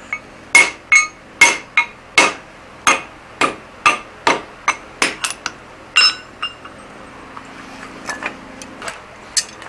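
A hand hammer striking a cast ductile-iron hammer-eye drift on the anvil, driving it through the hot eye of a forged hammer head, with sharp ringing metal blows about two a second. After about six seconds the blows stop and only a few lighter metal clinks follow.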